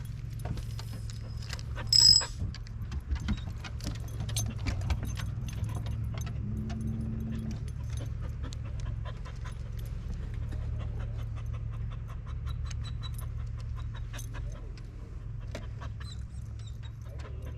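A dog's small sounds, with a brief high squeak about two seconds in, over a steady low hum and many light clicks.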